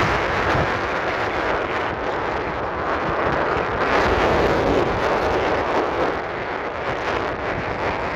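Wind blowing across the microphone: a steady rushing noise with a ragged low rumble.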